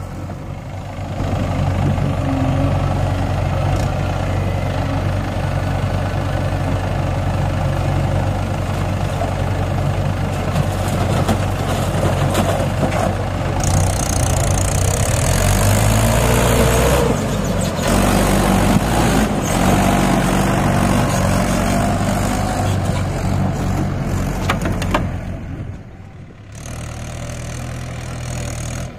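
Mahindra 575 DI tractor's four-cylinder diesel engine running steadily, with a dip in loudness about 26 seconds in.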